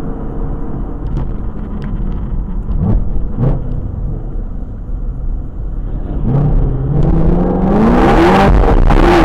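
Car engine with a loud exhaust cruising, then blipped twice about three seconds in. From about six seconds it accelerates hard, its note climbing steadily and getting much louder, until it drops sharply right at the end as the gear changes up.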